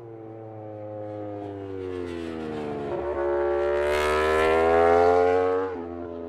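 MotoGP racing motorcycle engine at high revs, its note sliding down for about three seconds, then jumping and climbing as it accelerates and gets louder. The note drops sharply near the end at a gear change.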